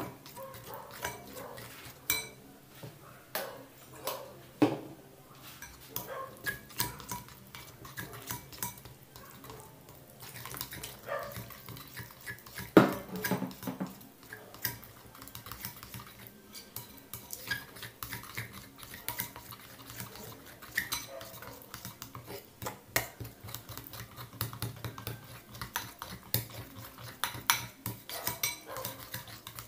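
A utensil stirring a thin flour-and-carrot-juice batter in a bowl, with irregular clinks and scrapes against the bowl's sides and one louder knock about halfway through, as the lumps are worked out.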